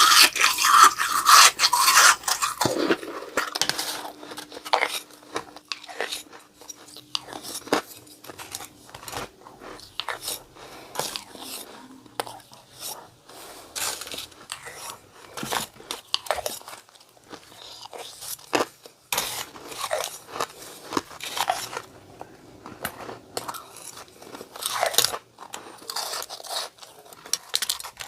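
Snow being bitten and chewed close to the microphone: a dense, irregular run of crisp crunches and crackles, loudest in the first few seconds.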